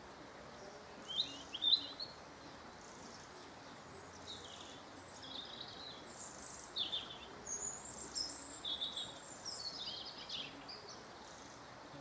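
Small garden songbirds chirping and singing, a string of short high chirps and trills, loudest about a second and a half in, over a faint steady background hiss.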